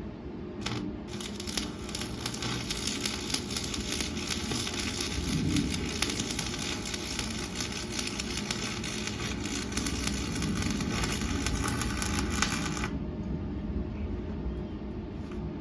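Electric arc welding on steel: a short tack-like burst of arc crackle, then a continuous crackling weld bead of about eleven seconds that stops abruptly, over a steady low hum.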